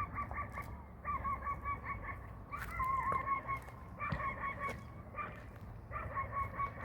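Domestic fowl calling in about six pulsing bursts of roughly a second each, one after another.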